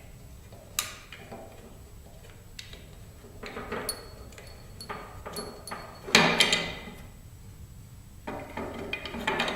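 Small metal hardware being handled while a nut and screw are fitted into a scraper's sharpening jig: a sharp click about a second in, light metallic clinks with brief ringing around the middle, the loudest clatter at about six seconds, then rubbing and scraping near the end.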